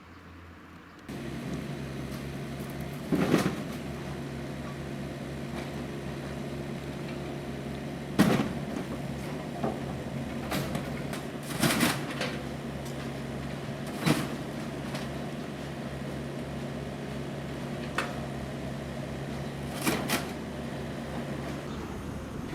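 A steady low mechanical hum starts about a second in, with a handful of sharp knocks or clicks scattered over it.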